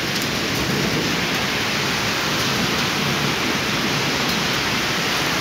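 Heavy rain pouring down steadily in a thunderstorm, a dense, even hiss of water falling on the street and balcony.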